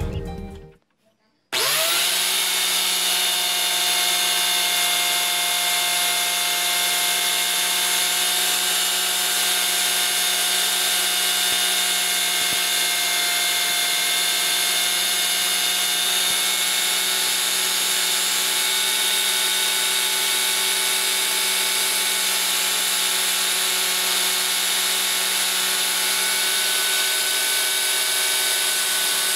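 Electric angle grinder with a sanding disc switching on about a second and a half in, spinning up and then running steadily with a high whine, while an epoxy-resin knife blank is sanded against the disc.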